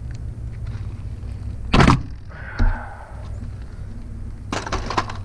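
Plastic RV refrigerator exterior vent cover being unlatched and pulled off. There is a loud sharp snap about two seconds in, a dull thump just after, and a cluster of plastic clicks and rattles near the end, over a steady low hum.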